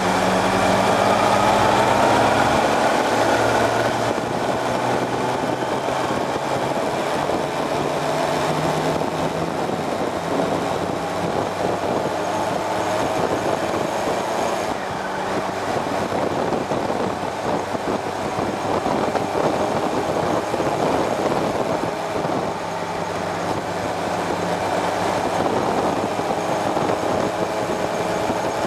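Motorcycle engine heard from on board while riding. Its pitch climbs over the first few seconds as it accelerates, then it runs on under a steady rush of wind and road noise.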